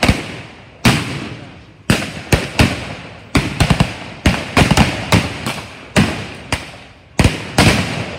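Small arms firing blanks in a skirmish: about twenty sharp shots from several guns at irregular intervals, sometimes three or four within half a second, each followed by an echoing tail.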